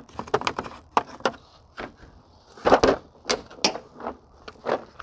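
Irregular metal clicks and clanks of a socket wrench working the radiator's 12 mm mounting bolts, with a few louder knocks around the middle.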